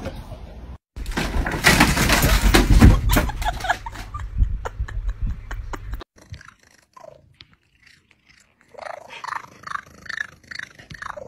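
A loud stretch of noise with knocks in the first half. After a near-quiet spell, a cat makes a run of short meows near the end.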